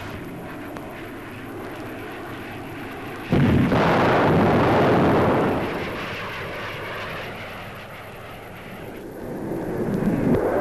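Sonic boom from a de Havilland DH.110 jet fighter diving faster than sound: a sudden loud bang about three seconds in that rumbles for about two seconds and fades. Jet aircraft noise rises again near the end.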